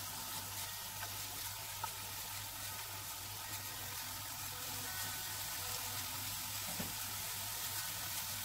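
A steady sizzling hiss from the frying pan on the stove, with a few faint crisp knife cuts as a red onion is chopped in the hand over the pan.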